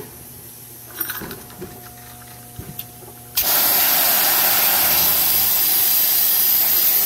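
A few light clicks of a rivet tool being set on a 1/4-inch shear rivet. Then, about halfway through, a loud steady hiss of compressed air starts suddenly as an air-powered rivet gun pulls and squeezes the rivet.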